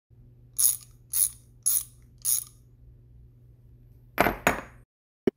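Mechanical ratchet-like clicking: four evenly spaced clicks over a low steady hum, then two louder clacks close together and one short click near the end.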